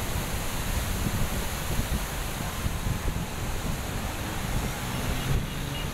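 A river in flood spate, its floodwater rushing steadily, with wind buffeting the microphone as a low, fluttering rumble.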